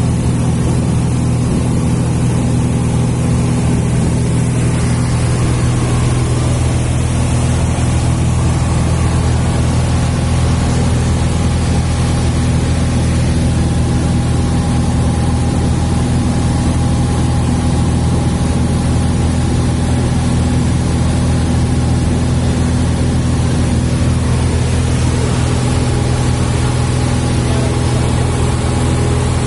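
Cessna 172's piston engine and propeller heard from inside the cabin in flight: a steady, loud drone that holds one even pitch.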